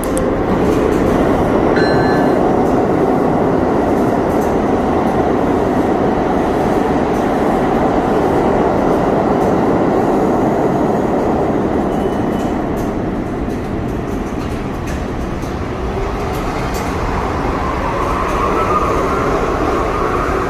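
New York City Subway 1 train of R62A cars at the station: a loud, steady rumble of train noise, then, near the end, a rising whine as the train accelerates away from the platform.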